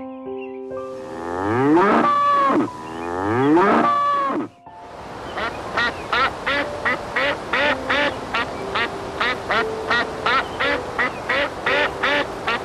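A cow mooing twice in long calls, followed by a duck quacking in a quick steady run of about three quacks a second. Light background music plays under the calls.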